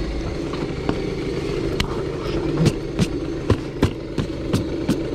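Small scooter engine idling steadily, with a run of sharp clicks and knocks on top from about two seconds in.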